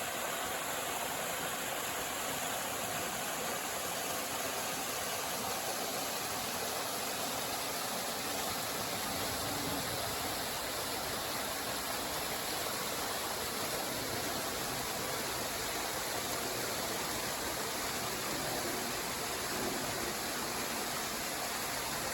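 Small waterfall: water falling and splashing in a steady, even hiss.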